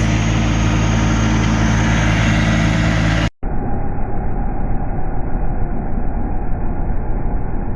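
Snowblower engine running steadily at a constant pitch. About three seconds in, the sound cuts off abruptly and gives way to a duller, muffled rushing rumble with no clear engine note.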